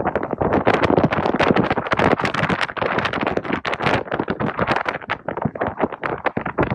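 Wind buffeting the microphone, a loud, uneven rushing noise that flutters and gusts without pause.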